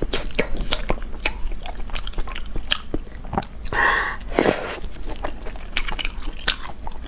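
Close-miked eating sounds: wet chewing and lip smacking, with many sharp little mouth clicks as pieces of hot pot food are bitten and chewed, and a longer, louder slurp about four seconds in.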